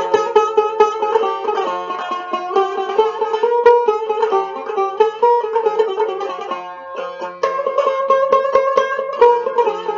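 A long-necked lute with a round metal body, played solo: a fast plucked and strummed instrumental passage of a Turkish folk song, with no singing, easing off for a moment about seven seconds in before picking up again.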